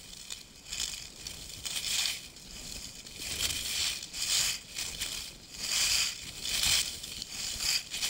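Skis carving turns on groomed snow: a hissing scrape that swells with each turn, about once a second.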